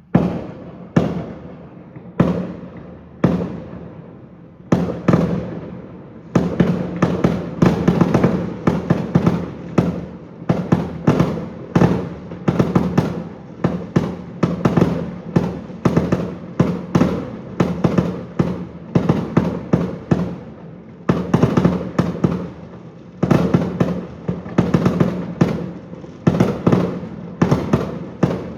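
Fireworks display: aerial shell bursts going off with sharp bangs, each trailing off in an echo. A few single bangs come a second or so apart, then from about six seconds in a rapid, nearly continuous barrage of bursts follows.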